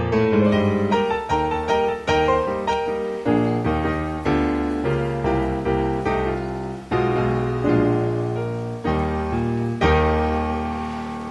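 Background solo piano music: a slow melody of struck notes over chords, each note ringing and dying away, ending on a held chord that fades near the end.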